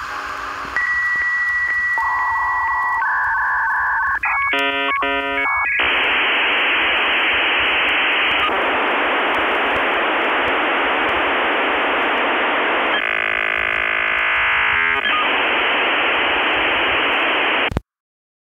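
Dial-up modem handshake: a steady high answer tone and stepped beeps, a quick run of squealing tones, then long loud hiss broken by a warbling stretch, cutting off abruptly near the end.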